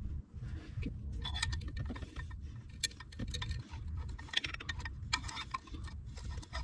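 Scattered light metallic clinks and scrapes as a telescoping magnet pickup tool probes inside an aluminium engine oil filter housing, fishing out a loose screw.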